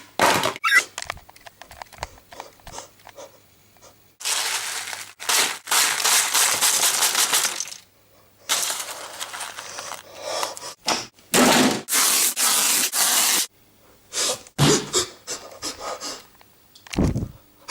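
Things being smashed and broken: a run of sharp cracks and snaps, then several long stretches of rough crunching and scraping lasting a few seconds each, then more separate hits ending in a heavy thud.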